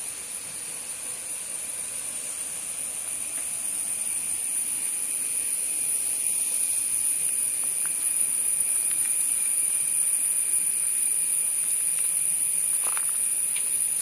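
Continuous high-pitched drone of forest insects such as cicadas, one steady shrill tone with a fainter lower one beneath it, growing louder over the first half.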